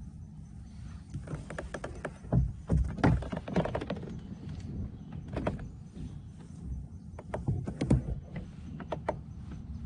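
Irregular knocks and clicks of gear being handled in a kayak, heaviest about two to four seconds in and again near the end, over a steady low rumble of wind on the microphone.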